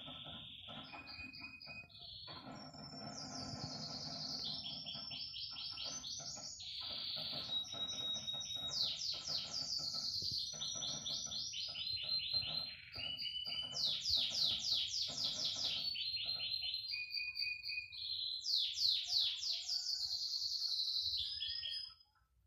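Bird-like song of rapid trilled chirps, each series of quick repeated notes held at one pitch before jumping to another, continuing almost without a break until it stops just before the end. No firework bangs are heard.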